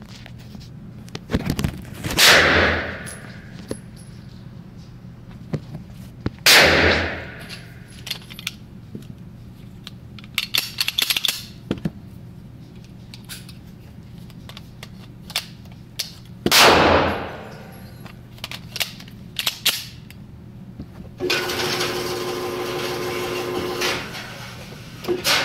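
Three gunshots ring out in an indoor range, each echoing off the walls: one about two seconds in, another about four seconds later and a third about ten seconds after that. Near the end, the range's electric target carrier motor runs with a steady hum for about three seconds, sending the paper target back downrange.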